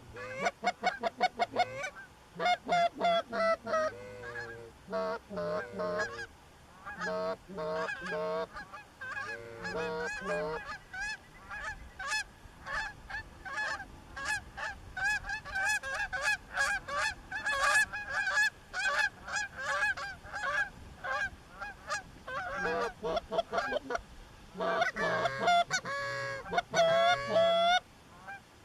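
Canada goose honking and clucking: many short honks in quick succession, with fast runs of clucks near the start and again near the end.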